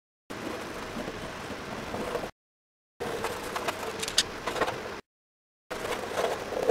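Coloured pencil scribbling rapidly on a bare wood panel, a dry scratching with occasional sharp ticks as the tip strikes the board. It comes in short stretches of about two seconds, each cut off abruptly by a moment of dead silence.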